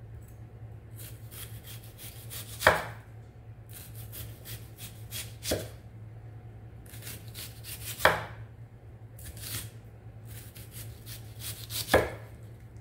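Large kitchen knife slicing a white onion into very thin rings on an end-grain wooden cutting board: runs of crisp, quick crunches as the blade goes through the onion, with a louder knock of the blade on the board four times. A low steady hum runs underneath.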